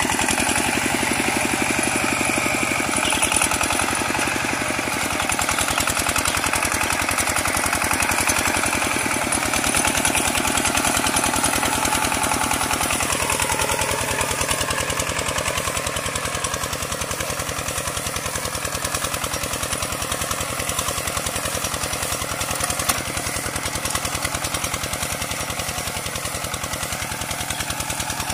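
Single-cylinder diesel engine of a Kubota two-wheel walking tractor running steadily under load as it pulls a disc plough through the soil, its note dropping a little about halfway through.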